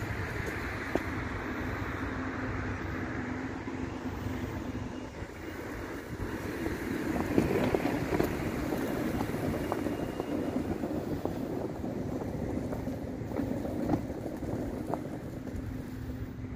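Wind buffeting the microphone over steady street traffic noise, growing louder for a couple of seconds about seven seconds in as a vehicle passes.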